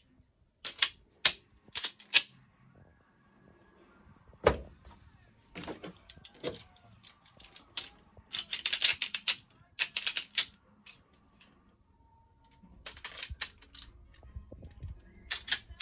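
Metal clicks and clacks of pistols being loaded and handled: cartridges, magazines and slides clicking, some in quick clusters of rapid clicks, with a duller thump about four and a half seconds in.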